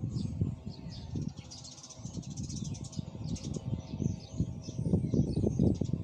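Small birds chirping and calling in many quick, high notes, over a low rumbling noise that grows louder near the end.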